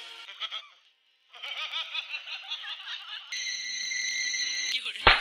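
Added comedy sound effects: a burst of laughter, then a steady high beep lasting about a second and a half, and a sudden loud crash at the very end.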